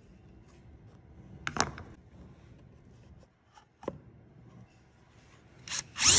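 Bosch cordless drill running in short bursts as it drills holes into pine: a brief burst about a second and a half in, a shorter one near four seconds, and a louder one near the end with the motor whine rising.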